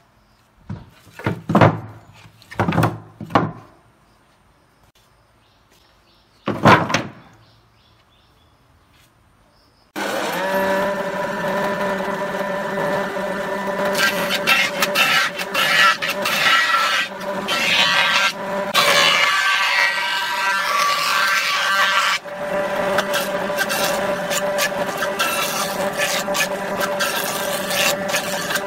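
A few short wooden knocks as boards are handled on a workbench, then, about ten seconds in, a jointer-planer starts up suddenly with a steady high whine. A weathered board is fed over its cutterhead, the cutting adding a rough rasping noise in stretches.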